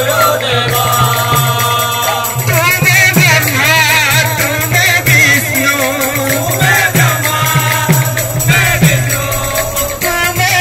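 Sambalpuri kirtan music: a group sings a devotional chant with wavering pitch over barrel drums beaten in a steady rhythm, with metal cymbals ringing above.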